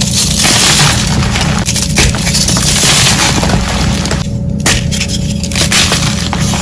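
Blocks of dyed gym chalk (magnesium carbonate) crushed by hand, crumbling into powder with dense, continuous crunching and crackling. A block is snapped apart near the end, with fragments falling.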